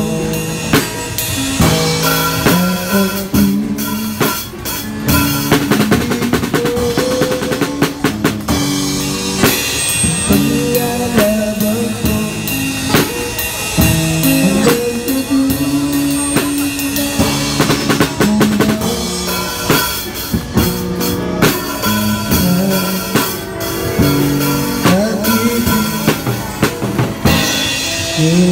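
A drum kit with Sabian AAX cymbals played in a steady, busy beat of bass drum, snare and cymbal hits, with an electric guitar playing a melody alongside it through a small portable amplifier.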